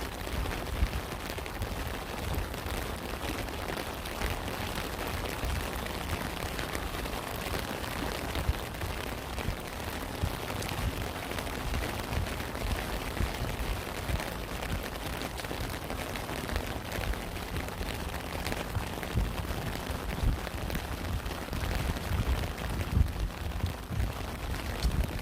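Steady rain falling, a continuous hiss with many individual drops pattering and uneven low rumbling thuds underneath.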